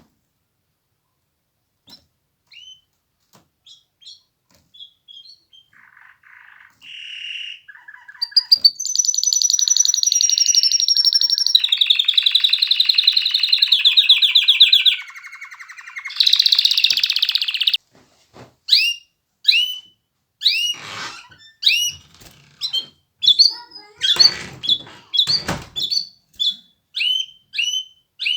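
Domestic canary singing: a few scattered chirps, then a long run of rapid trills, each roll held a few seconds before switching to a lower pitch. Near the end come separate sharp, downward-sweeping chirps about twice a second.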